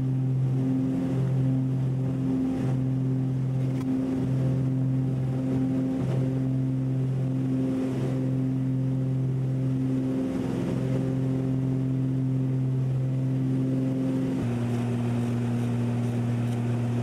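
Twin-engine propeller plane at takeoff power, heard from inside the cabin: a steady drone with a slow wavering beat every second or two, from the two propellers turning slightly out of step. About 14 seconds in, the drone drops a little in pitch and the beating stops, as the engines are brought back for the climb and the propellers fall into step.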